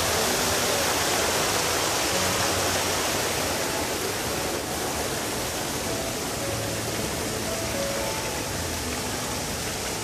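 Rushing water of a small waterfall and its rocky stream, a steady even noise, with faint background music laid over it.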